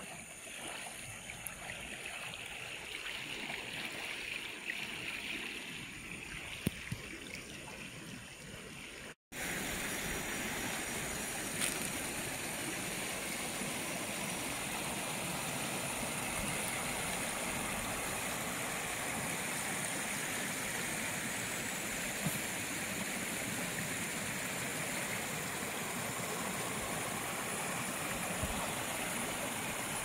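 Shallow river running over stones and riffles, a steady rush of water. It drops out for an instant about nine seconds in and comes back louder.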